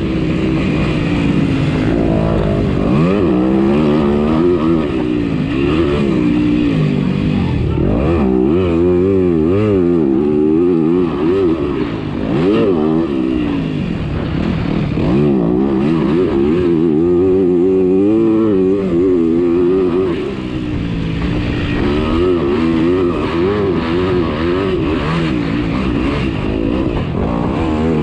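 Motocross motorcycle engines revving hard on a dirt track. The pitch rises and falls over and over as the bikes accelerate, shift and back off, and at times two engines are heard at once.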